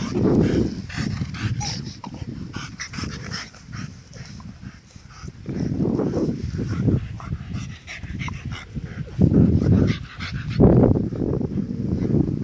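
A dog playing with a squeaky ball, its noises coming in several bursts of about a second each, with short clicks in between; the loudest bursts come in the last few seconds.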